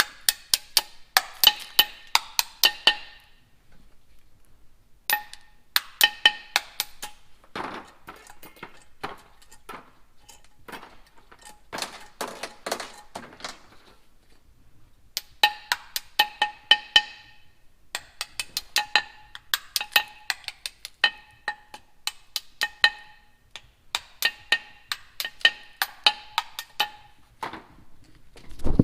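Rapid hammer blows on the seized valves of a diesel cylinder head, each ringing at the same metallic pitch. They come in bursts of several strikes a second, with short pauses between bursts, as the stuck valves are driven loose.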